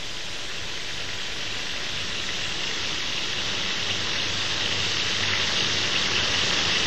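Tied pieces of meat sizzling in hot fat as they brown in a pan: a steady frying hiss that grows slightly louder.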